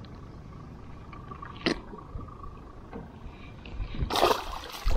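A small jack released by hand splashes into shallow water with a short splash about four seconds in. Before that there is only quiet handling, with one small click.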